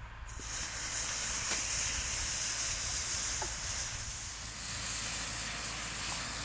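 Loose black gunpowder burning in lines on paper, a steady fizzing hiss that holds without a break.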